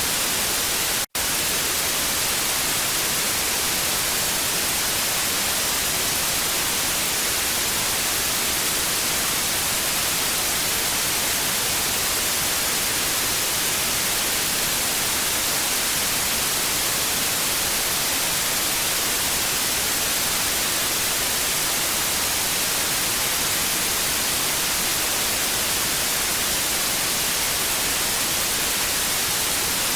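Steady TV static hiss with a bright, high-weighted tone, broken by a split-second dropout to silence about a second in.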